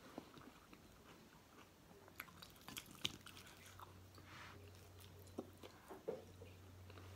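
Faint eating sounds: fingers picking crisp fried galunggong (round scad) apart on a plate, with small crackles and clicks and some chewing. A low steady hum comes in about halfway.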